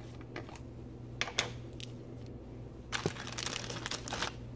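Plastic one-gallon freezer bag crinkling as it is handled: a few sharp crackles, then a longer spell of crinkling about three seconds in.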